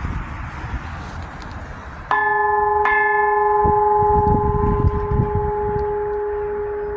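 Church bell struck twice, less than a second apart, about two seconds in, then ringing on with a long, slowly fading hum.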